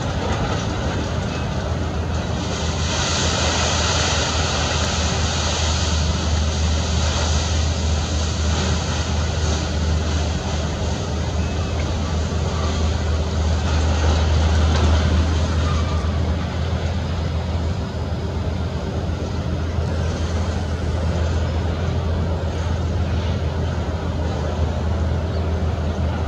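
Steady low rumble with an even hiss over it, the hiss stronger for a few seconds near the start.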